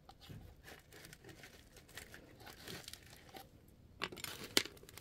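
Potting soil and roots rustling and crackling as a root ball is pressed and worked loose from an upturned pot, with a couple of sharper crackles about four seconds in.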